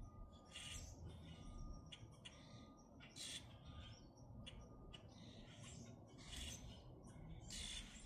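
Common grackles calling faintly: short, harsh, squeaky calls, about one a second, over a low background rumble.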